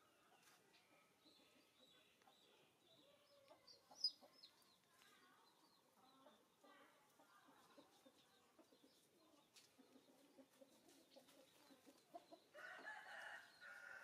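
Faint chickens clucking, with a rooster crowing near the end.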